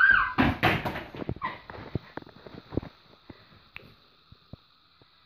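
A brief high squeal that rises and falls, then a flurry of thumps and rustling from a phone being handled and tumbled, thinning out into scattered small clicks.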